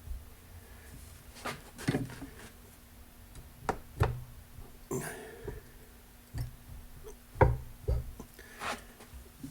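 Scattered metal knocks and clanks, about nine separate hits, from a pipe wrench and tools being worked on a Case 224 mower deck spindle that is still too tight to turn.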